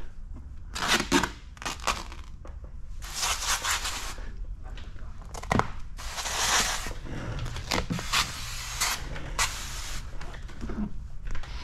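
Handheld pump sprayer spraying liquid under a lifted sheet of paint protection film, in about five short hissing bursts.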